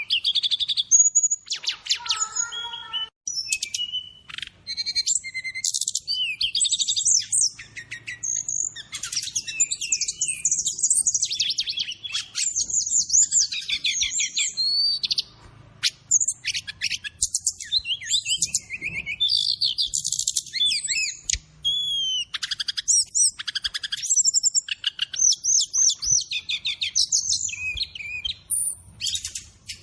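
Songbird training recording of a brown-chested jungle flycatcher (SRDC) singing nonstop, with other birds' calls mixed in as fill-in: fast, varied high-pitched chirps, trills and whistled phrases with short pauses between bursts.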